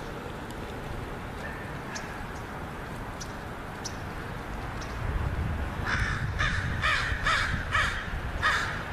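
A crow cawing about six times in quick succession, starting about six seconds in.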